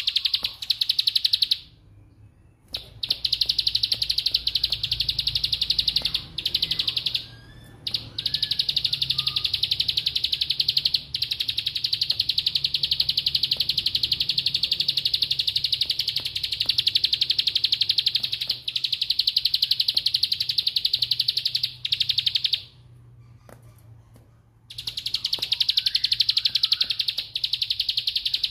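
Plain prinia (ciblek sawah) singing its 'ngebren' song: a very fast, high-pitched rattling trill likened to a machine gun, held in long runs. It breaks off briefly about two seconds in and near eight seconds, and pauses for about two seconds near the end.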